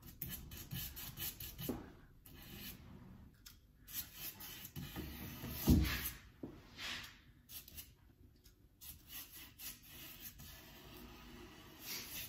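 A glue brush spreading contact adhesive along wooden snooker cushion strips, the bristles scratching and rubbing in repeated strokes. There is a single louder knock about six seconds in.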